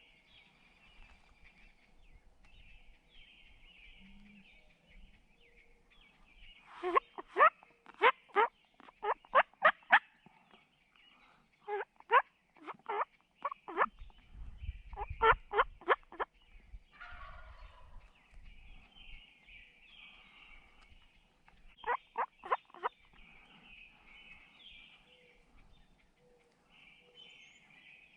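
Wild turkey calling: four loud series of sharp, quickly repeated notes, several a second, the longest about three seconds, over faint songbird chirping in the background.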